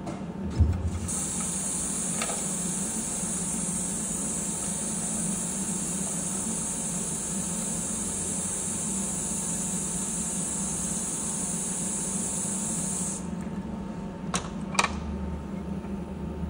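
Tap water running into a plastic water tank as it is filled: a steady hiss that starts about a second in and stops sharply some twelve seconds later. A thump just before the water starts, and a few sharp clicks of the plastic tank being handled near the end.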